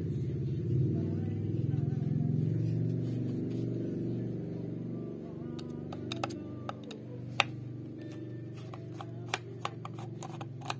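A motor vehicle's engine running nearby and slowly fading away. From about halfway on it is joined by a few sharp clicks and taps of small plastic and metal parts being handled as the kettle base is taken apart.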